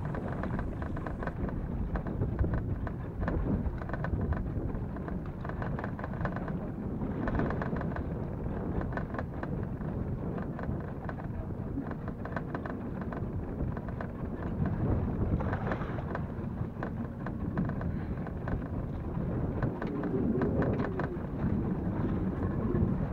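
Wind buffeting the microphone: a steady, rumbling rush of noise that swells and eases.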